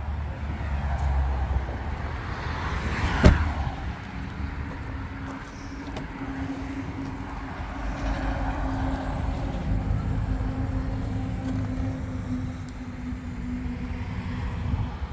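Road traffic passing by: two rising-and-falling swells of vehicle noise over a low rumble and a steady hum, with one sharp knock about three seconds in.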